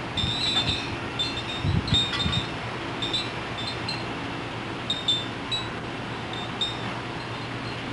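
Light metallic clinks and short high tinkles, scattered irregularly, over a steady low hum, with a couple of low thumps about two seconds in.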